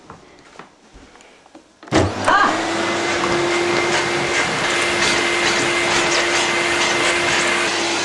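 Canister vacuum cleaner switched on about two seconds in. Its motor then runs steadily, with a low hum and a high whistle over the rush of air through a small nozzle attachment on the hose.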